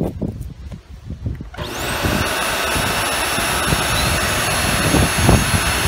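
Hoover WindTunnel Air Pro upright vacuum's motor switched on about a second and a half in, spinning up to a steady high whine; the motor itself is working. A few low knocks of handling come before it.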